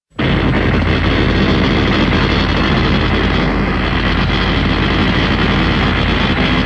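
Kiryu (Mechagodzilla) film sound effect: a loud, steady mechanical drone with a deep hum beneath it, starting abruptly out of silence and holding level.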